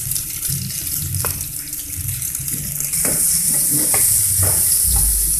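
Scrambled egg with garlic and leek sizzling in hot oil in a frying pan, louder from about halfway through. A wooden spatula knocks and scrapes against the pan a few times as it is stirred.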